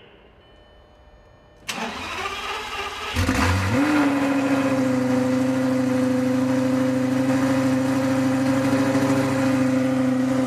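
2004 Lamborghini Gallardo's V10 cranked over by the starter for about a second and a half, then catching with a short flare of revs and settling into a steady, loud idle. It is a cold first start after four months of winter storage.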